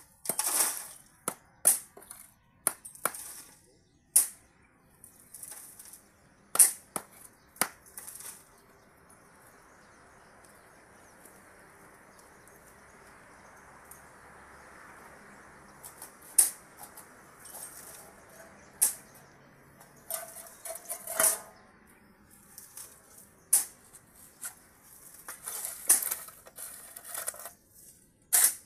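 A steel shovel scraping and scooping concrete mix off a concrete floor and knocking against a metal hollow-block mold, in sharp, irregular scrapes and clanks. The clatter stops for several seconds in the middle, then starts again.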